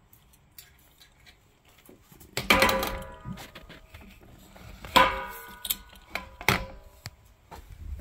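Metal clanking: three loud strikes of metal on metal, each ringing on briefly, about two and a half, five and six and a half seconds in, with smaller clicks and rattles between.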